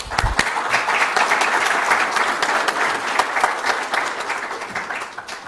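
Audience applauding, with a brief low thump at the start; the clapping tapers off near the end.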